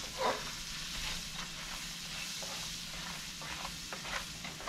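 Sliced onions sizzling in grease and flour in a stainless steel frying pan, with a nylon spoon scraping and stirring them in short strokes.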